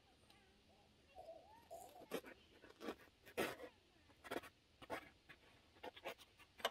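Sharp knife slicing through the edge of a brain-tanned bear hide: short scratchy cutting strokes at irregular intervals, starting about two seconds in.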